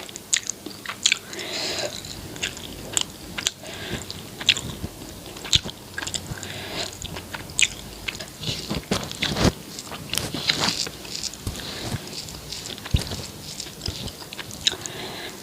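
Close-miked mouth sounds of someone eating rice with egg curry and roti: irregular chewing with many short, sharp, wet clicks.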